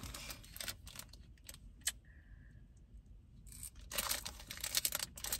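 A clear plastic snack wrapper crinkling as it is handled and opened, starting about four seconds in, after a few scattered light clicks.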